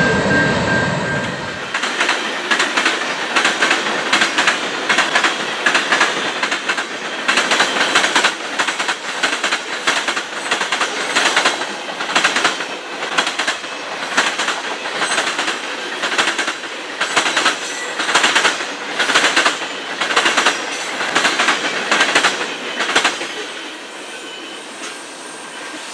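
Freight cars of a CN manifest train rolling through a railway diamond crossing: steel wheels bang across the crossing in a steady rapid clatter, the knocks coming in quick groups under a continuous rolling rumble. A deeper rumble at the very start fades within about two seconds, and the clatter eases off near the end.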